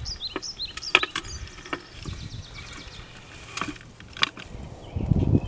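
Several sharp clicks and snaps spread through, over small birds chirping in the background; near the end a low rumble sets in.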